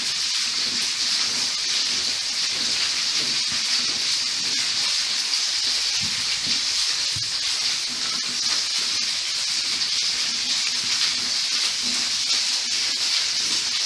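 Chicken pieces sizzling steadily as they fry in olive oil in a pan.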